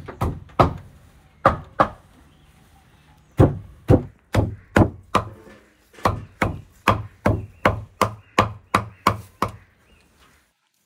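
Cleaver chopping a pile of fresh green herbs on a wooden tree-stump block. A few scattered chops come first, then a steady run of about two to three chops a second.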